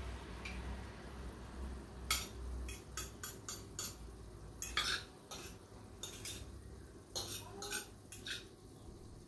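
Metal cutlery clinking and scraping against dishes: about a dozen sharp clinks at irregular intervals, starting about two seconds in. A low hum underneath dies away after about three seconds.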